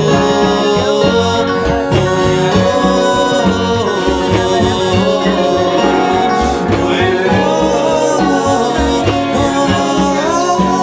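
Live Brazilian band music: wordless sung vocals over plucked guitar strings, with a steady rhythm from hand drums and bass.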